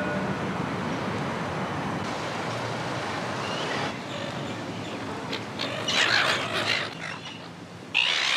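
Steady street noise, then, after a cut about four seconds in, a flock of silver gulls squawking and calling in repeated harsh bursts, loudest near the end.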